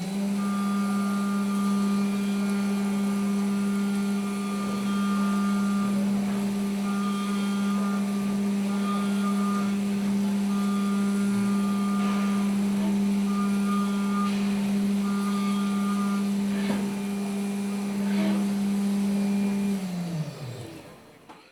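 CNC milling machine spindle running at a steady speed with a strong hum, while a higher whine switches on and off every second or two and a few sharp clicks sound. Near the end the spindle winds down, its pitch falling until it stops.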